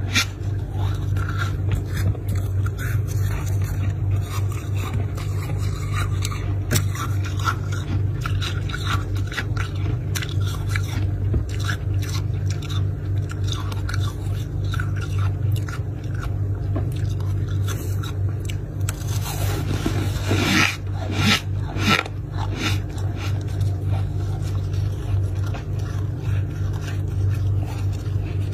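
Close-up crunching, chewing and scraping of freezer frost, an uneven run of crisp crackles that is densest about three quarters of the way through, over a steady low hum.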